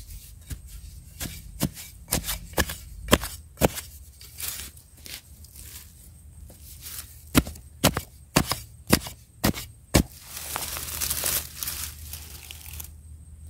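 Digging in dry, crumbly soil around a wild yam tuber with gloved hands and a metal-tipped digging bar: irregular sharp knocks and scrapes, then a longer stretch of scraping near the end.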